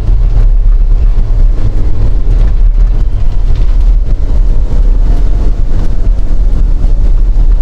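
Steady, loud low rumble of a vehicle being driven, with wind.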